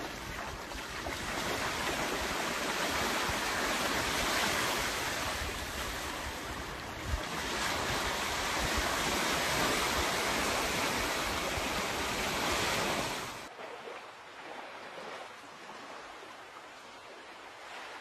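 Small waves breaking and washing up a sandy beach: a steady rush of surf that swells and eases. About 13 seconds in it drops suddenly to a fainter, duller wash.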